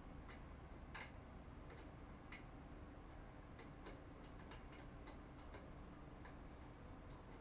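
Faint, irregular light clicks and ticks, a dozen or so spread unevenly over several seconds, above quiet room tone.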